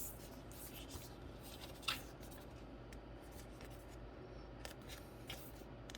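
Faint handling of a trading card and a plastic card sleeve: soft rustling and sliding, with one sharper tick about two seconds in.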